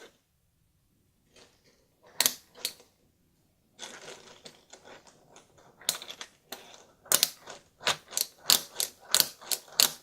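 Small plastic toys handled on a tabletop: after a near-silent start, a string of sharp clicks and taps, about two to three a second in the second half.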